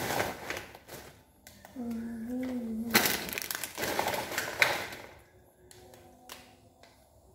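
Plastic snack wrapper crinkling as it is handled, in two stretches with sharp crackles, the second and loudest about three seconds in. A child's brief voice sounds between them.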